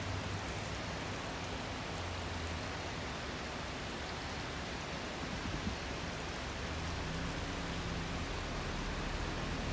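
Steady rushing noise with a low steady hum underneath, typical of a car driving slowly heard from inside the cabin.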